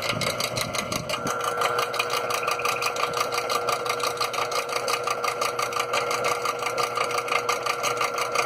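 Antique Keen Kutter rotary mower's GE 1/4 hp electric motor and blade running, with a steady whine over a fast, even ticking.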